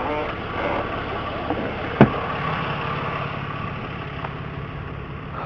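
Truck engine idling steadily, with a single sharp click about two seconds in.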